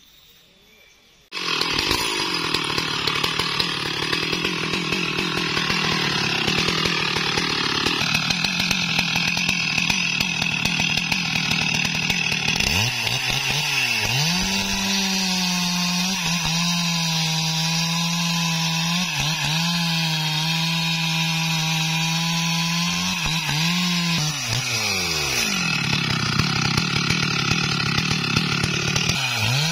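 STIHL MS382 two-stroke chainsaw cutting at full throttle into the base of a large tree trunk. It starts abruptly about a second and a half in. Its engine note holds steady through the cut, with a few brief dips in pitch as it bogs under load.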